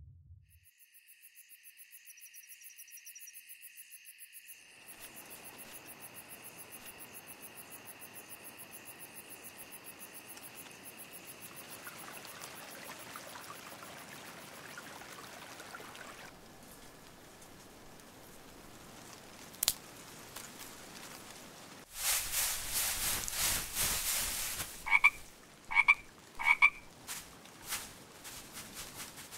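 A steady high trill with a faint hiss, then a loud rattling burst lasting a couple of seconds about three-quarters of the way in, followed near the end by a frog croaking three times in quick succession.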